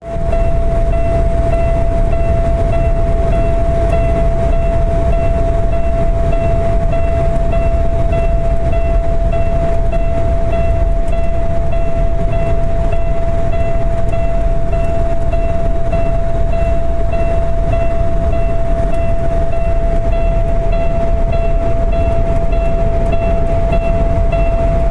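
A loud, steady high-pitched whine holding one pitch without a break, over a continuous low rumble.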